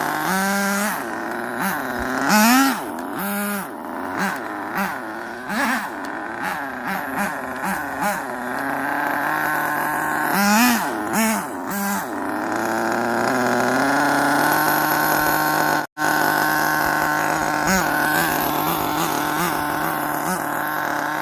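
Radio-controlled car's small engine running on the Jato two-speed transmission: a steady idle broken by repeated quick throttle blips and runs where the pitch rises and falls, with a longer steady stretch in the second half.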